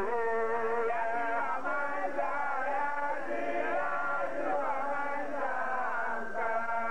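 A man's voice singing a melismatic devotional chant through a microphone and loudspeaker, holding long notes that slide up and down in pitch.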